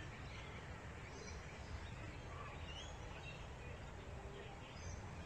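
Quiet outdoor ambience: a steady low rumble with a few faint, short bird chirps scattered through.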